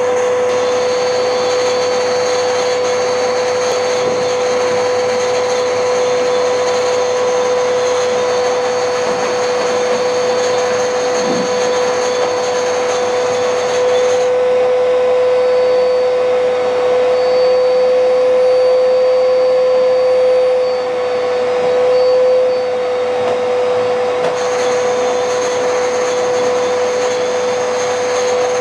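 An electric motor runs steadily throughout with a strong, constant hum and a whooshing noise, dipping briefly about twenty seconds in.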